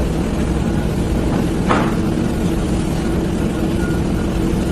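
A heavy engine running steadily with a low rumble, and a short hiss a little under two seconds in.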